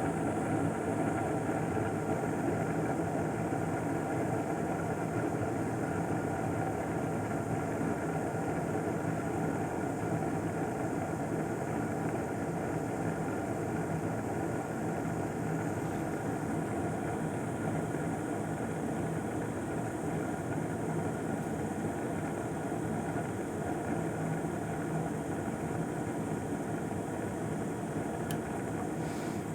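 Gas furnace running with its burners lit and the draft inducer motor humming, a steady, even running sound with a few held tones, while it waits for the blower motor to start.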